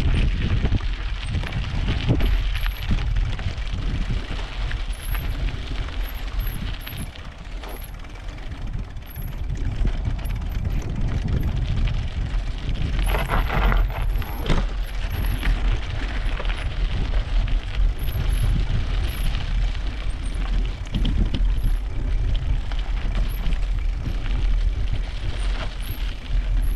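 Bicycle rolling over a rough dirt-and-gravel path: a steady rumble of the tyres and frame over the surface, with a brief louder clatter about halfway through.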